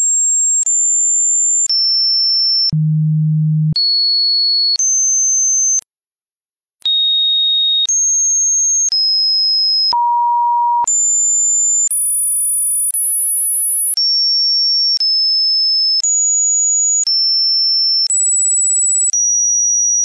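A sequence of pure electronic sine tones, one a second, each at a different pitch with a click at every change: mostly high, piercing tones, with one low hum about three seconds in and one mid-pitched beep about ten seconds in.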